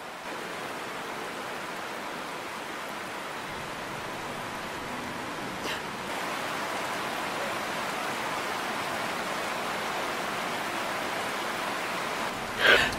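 Steady rain falling, an even hiss that grows a little louder about six seconds in. A brief louder noise comes just before the end.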